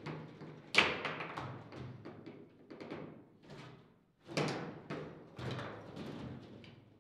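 Foosball table in play: a string of hard knocks as the ball is struck by the figures on the rods and bangs against the table walls, with clattering of rods and figures. The sharpest knock comes about a second in and another just before halfway.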